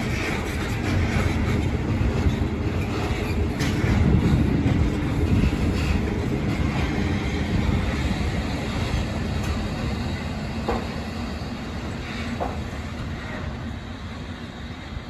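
Freight train of covered goods wagons rolling past, steel wheels rumbling and clacking over the rails, with a few brief squeaks. The noise peaks a few seconds in and slowly fades as the last wagons go by.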